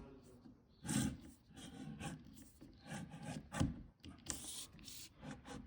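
A vent-cleaning brush being pushed down and worked inside a clogged dishwasher breather line, scraping and rubbing in short, irregular strokes.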